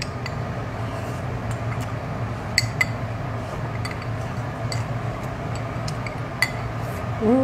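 Tableware clinking: utensils tapping plates and bowls, two sharp clinks about two and a half seconds in and another near the end, over a steady low hum.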